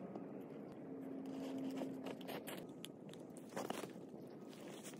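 Crunching steps and movement in snow. A steady low hum lasts about a second and a half near the middle, and a sharper crunch comes a little past three and a half seconds in.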